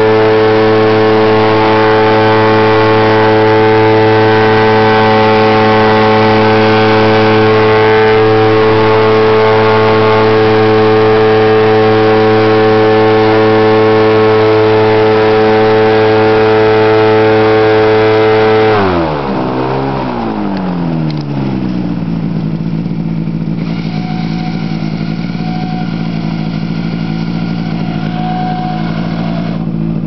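A wild rice harvesting boat's engine running steadily at high revs as the boat pushes through the rice. About two-thirds of the way in it is throttled back: the pitch drops quickly and settles into a lower, quieter idle.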